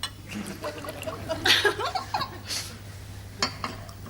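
Studio audience laughing, loudest about a second and a half in, with two short clinks near the end.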